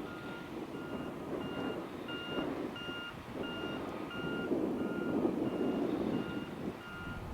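A vehicle's reversing alarm beeping steadily, about three short beeps every two seconds, over a low background rumble.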